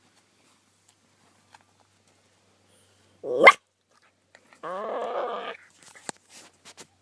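A dog vocalising: a short, sharp cry that sweeps upward in pitch about three seconds in, then a pitched, wavering call lasting about a second. A few sharp clicks follow near the end.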